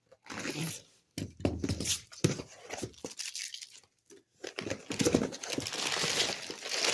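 Packing material being crumpled and pulled out of a cardboard shipping box: irregular crinkling and tearing rustles, coming in separate handfuls at first and turning into a denser, continuous rustle about halfway through.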